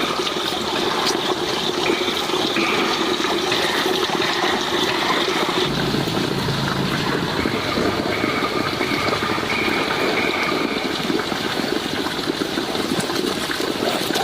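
Water running steadily, a continuous splashing rush.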